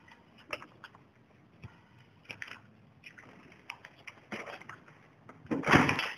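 Footsteps crunching and scraping on grit and debris on stairs, a few irregular steps, with one louder, longer crunch near the end.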